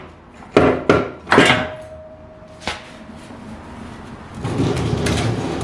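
Manual gearbox being worked free of a Ford 1.0L three-cylinder EcoBoost engine. There are three sharp clunks in the first second and a half, a short ringing tone ending in a click, then a longer scraping rumble from about four and a half seconds in as the transmission slides off the engine.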